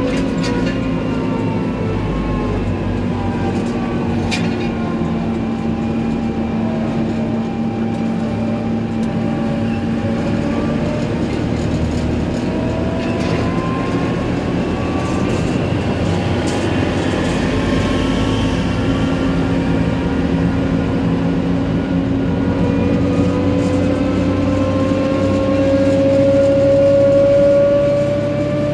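Tractor engine running steadily while the tractor drives along the road, with a tone that rises in pitch and grows louder over the last few seconds.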